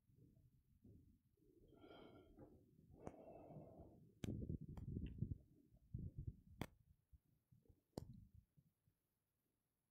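Quiet shuffling, footsteps and handling thumps of several people walking off a carpeted stage, with a few sharp clicks; busiest about four to five seconds in, then dying away.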